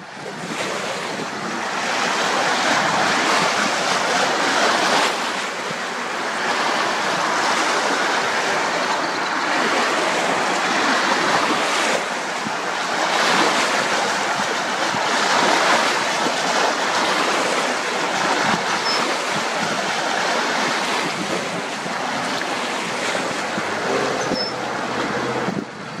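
Choppy water washing and splashing over a rocky shoreline in a strong wind, the surf swelling and easing every few seconds, with wind on the microphone.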